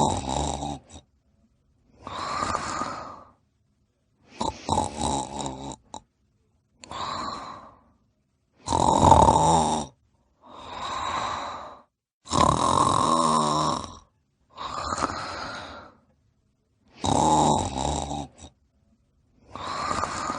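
Snoring: about five slow breaths, each a rattling snore followed by a smoother, hissing breath, repeating every four to five seconds with silence in between.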